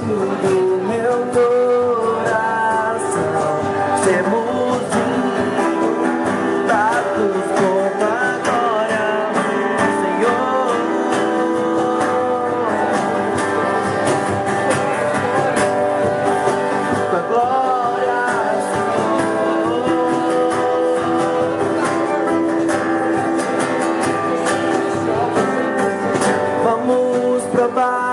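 Music with singing over guitar accompaniment, continuous and steady in level.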